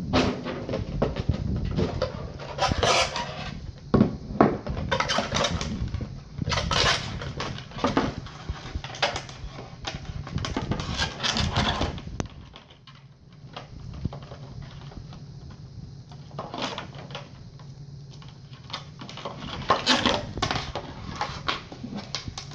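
Packaging being handled during an unboxing: irregular rustling, crinkling and clicking as a cardboard box is opened and a headset is taken out of its plastic and inserts, quieter for a stretch in the middle.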